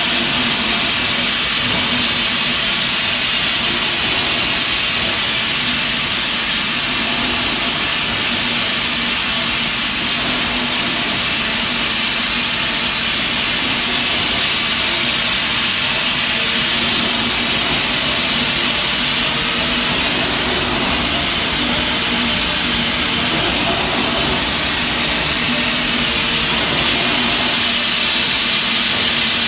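Steady industrial machine noise around a Barnaul K849C knuckle-joint forging press: a constant hum under a loud, even hiss like escaping steam or air, with no press strokes or impacts heard.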